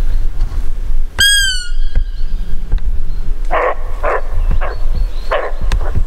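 Roe deer barking: a run of short, hoarse alarm barks in the second half, over wind rumbling on the microphone. About a second in comes a single short, high whistled squeak.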